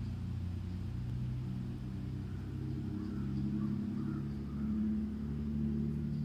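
A motor engine running: a low, steady hum whose pitch shifts up and down a few times.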